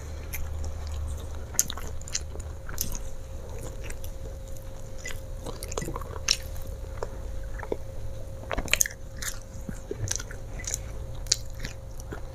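Close-up chewing and crunching of flour-coated fried potato sticks: irregular crisp bites and crackles, the sharpest a little under 9 seconds in. The fries have gone somewhat hard rather than crisp.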